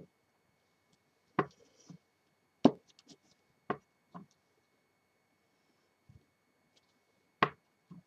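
Clear acrylic stamping block knocking and tapping on the work table as it is lifted off the card and set down: about half a dozen short, sharp knocks spaced irregularly, with the last loud one near the end.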